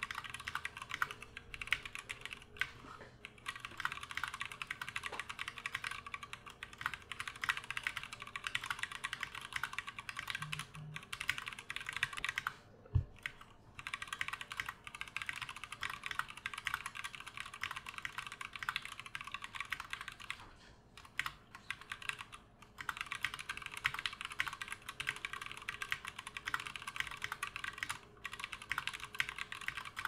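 Continuous fast typing on a custom-built 60% mechanical keyboard: a dense stream of key clicks, with two short pauses, about twelve seconds in and again around twenty-one seconds.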